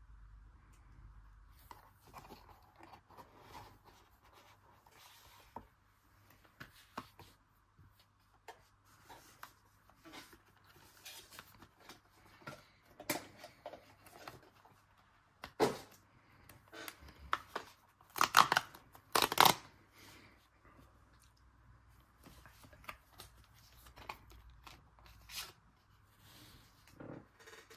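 Sticker sheets and their backing being handled and peeled on a table. Scattered rustles, taps and crinkles run throughout, with a few louder tearing rustles a little past halfway.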